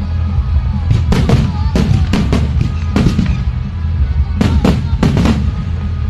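Fireworks going off: about a dozen sharp bangs in quick clusters starting about a second in, over a steady low rumble with music.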